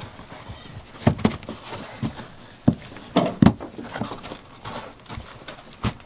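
Handling noise from fitting a fabric-covered wire chase trim piece into a van wall corner by hand. Irregular knocks and taps come as the piece is pressed and pushed into place, with fabric rubbing between them, and the loudest knock is about halfway through.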